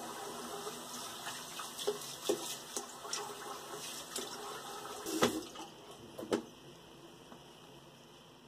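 Bathroom tap running into a sink with small splashes as the face is rinsed after a shave. Two sharp knocks come about five and six seconds in, then the water stops.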